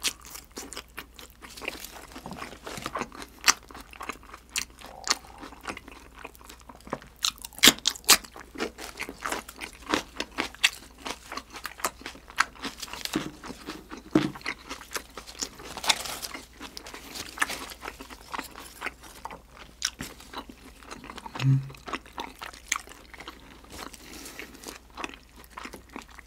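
Close-miked chewing and crunching of mouthfuls of grilled, sauce-glazed freshwater eel with fresh greens: irregular wet smacks and crisp crunches, with two brief low hums partway through.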